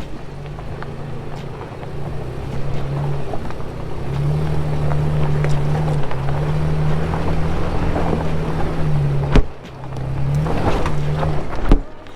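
A vehicle engine running, its pitch shifting up and down as the revs change, with two sharp knocks near the end.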